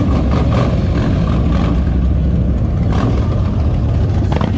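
Several Harley-Davidson V-twin motorcycles riding slowly past one after another, their engines running at low revs with a steady low rumble.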